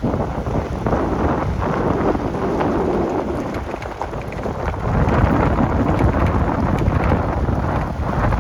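Wind buffeting the microphone: a steady, loud, uneven rumble.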